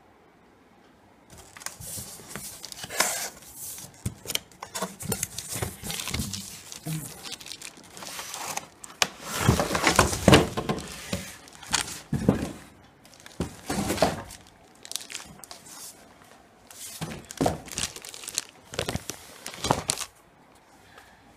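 Plastic wrapping and packing material around a boxed keyboard crinkling and rustling, with tearing, during unpacking. The crackling starts about a second in, comes in irregular handfuls, is loudest around the middle, and stops shortly before the end.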